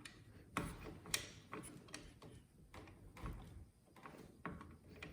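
Screwdriver turning a CPU cooler's mounting screw down onto the processor: irregular small clicks and scrapes of metal on metal.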